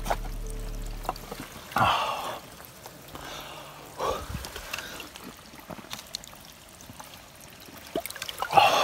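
A person drinking straight from a stream with the face at the water: loud slurps and gasps for breath come three times, over the faint trickle of the stream.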